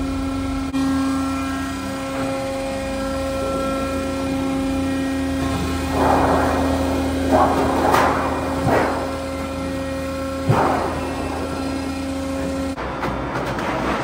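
Sheet-metal coil processing machinery running with a steady hum, with a cluster of short rattling clanks of steel sheet feeding off the coil after the middle and one sharp clank later. The hum cuts off near the end.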